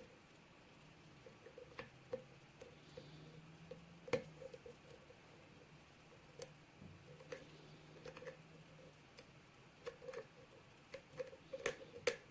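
Lock pick working the pins of a 7-pin pin-tumbler lock held under tension: irregular small taps and clicks as pins are lifted and set, with a few sharper clicks.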